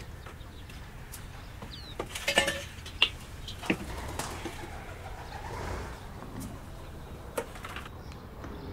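A few sharp clinks and knocks of household things being handled, a quick cluster about two seconds in and single ones a second and two seconds later, over faint bird calls.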